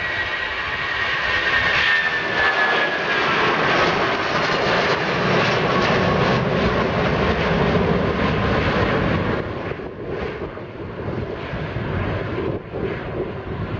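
Boeing 757 taking off, its twin jet engines at takeoff power with a whine that falls in pitch over the first several seconds as the airliner climbs away. The sound eases after about nine seconds as the plane draws off.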